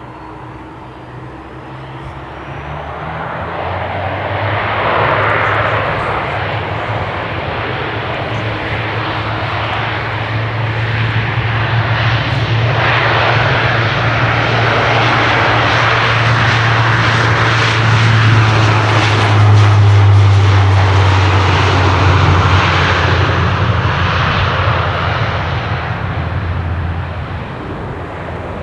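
Airliner's engines passing close by on landing approach: a broad rush with a low hum under it that builds steadily, peaks about two-thirds of the way through and then fades away.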